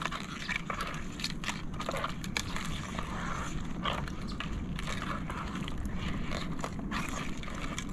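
Irregular crackles and snaps from a small wood cooking fire being rekindled after it went out, over a steady low rumble.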